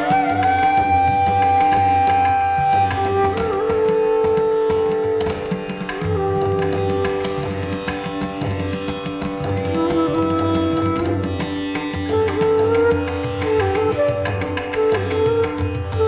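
Background music in a South Asian style: long held melody notes over a steady drone, with a low hand-drum beat.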